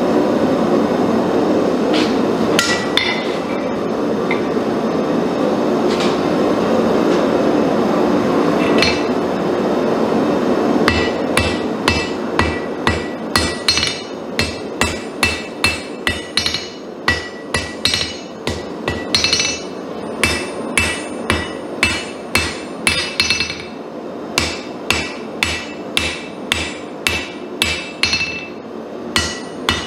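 A steady rushing noise with a few isolated knocks, then from about a third of the way in, hand-hammer blows on a red-hot damascus steel billet on a Kohlswa anvil, about two a second with short pauses, each strike ringing.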